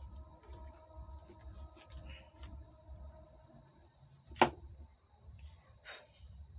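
Light clicks and one sharp knock about four seconds in, from the equalizer's metal front panel being worked loose and pulled out of the chassis, with a weaker knock near the end. A steady high chirring of crickets runs underneath.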